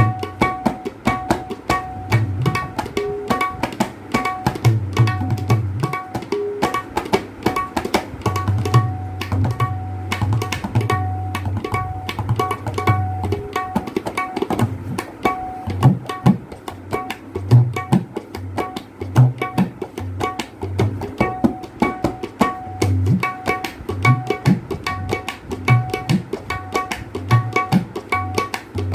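A tabla pair played in a fast, unbroken run of strokes as a tone check. The treble drum rings at one steady tuned pitch while the bass drum booms underneath.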